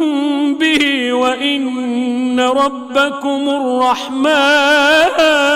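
A man reciting the Quran in melodic tajweed style: long held, ornamented vocal notes with a short break about four seconds in.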